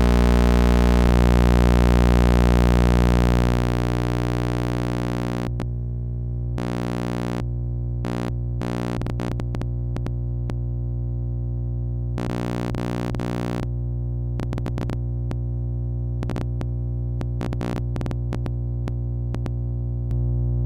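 Old thyratron tube wired as a sawtooth oscillator, giving a steady buzzing tone that drops in loudness about three and a half seconds in. From about five seconds on it crackles with irregular clicks. The uploader puts its odd sounds down to the tube being old and probably very worn out.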